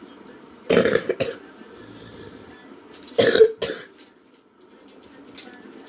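A person coughing in two short fits, each of two or three quick coughs, about a second in and again near the middle.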